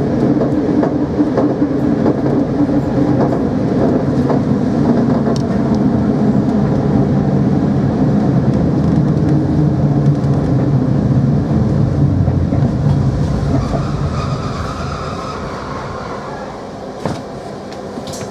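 Dutch Mat'64 (Plan V) electric multiple unit running, a loud steady mechanical sound from the train. It dies away over the last few seconds, with a higher tone briefly and a few sharp knocks near the end.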